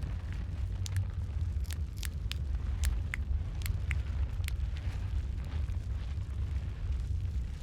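Wood fire crackling: sharp pops and snaps scattered over a steady low rumble of the flames, the pops thinning out after about five seconds in.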